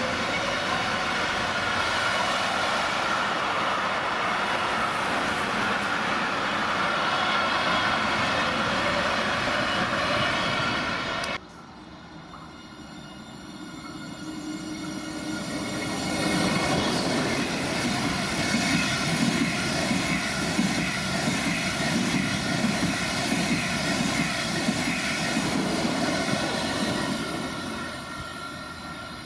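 An intermodal freight train carrying semitrailers on pocket wagons rolls past with a steady rumble of wheels on rail. It cuts off abruptly about a third of the way in. Then an ICE 1 high-speed train approaches, its rushing noise building over a few seconds to a loud, steady roar as it runs through, easing slightly near the end.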